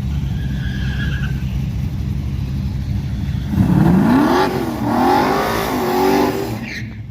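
A car at the drag strip doing a burnout: from about halfway in, its engine revs up and down several times while the tyres spin with a loud hiss, stopping just before the end. Under it, a steady low engine rumble.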